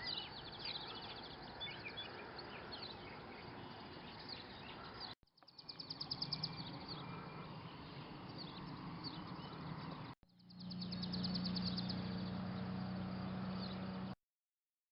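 Songbirds singing, with rapid high trills and scattered chirps over outdoor background noise, in three short cuts; a steady low hum joins under the last one, and the sound stops abruptly near the end.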